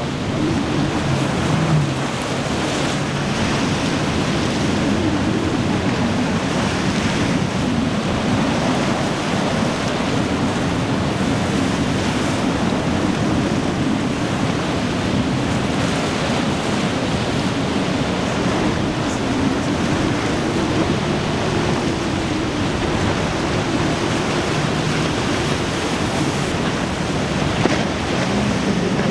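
Wind buffeting the microphone over the steady rush of surf and wake, with the low drone of outboard engines from offshore boats running through rough water underneath.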